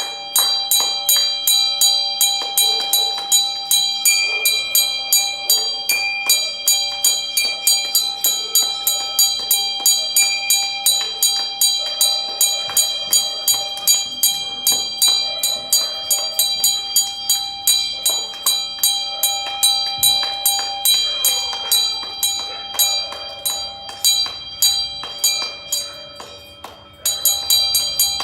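A metal bell rung over and over, about three or four strikes a second, its tones ringing on between strikes. Near the end it fades away, stops briefly, then starts again.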